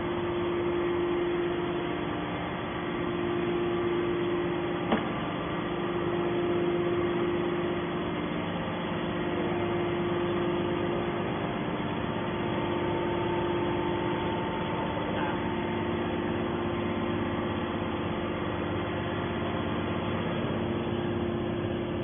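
Hydraulic power unit of a Y81/T-4000 hydraulic metal baler running steadily with the press at rest: an even mechanical hum with a steady tone. A single sharp click comes about five seconds in.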